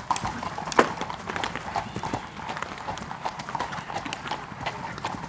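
Hoofbeats of horses galloping past on turf, a rapid, uneven run of thuds, with one loud knock a little under a second in.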